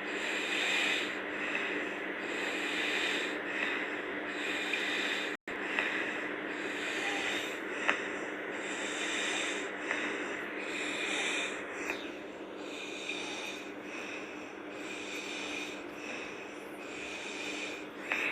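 A sleeping girl snoring, with noisy, snorting breaths that come and go again and again over a steady low hum. There is a brief cut-out about five seconds in.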